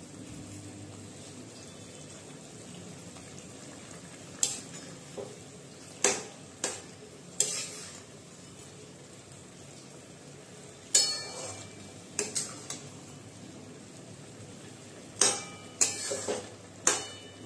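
A flat metal spatula stirring and scraping thick chicken gravy in a metal kadai, knocking against the pan in three clusters of sharp clacks, over a steady sizzle of the curry cooking.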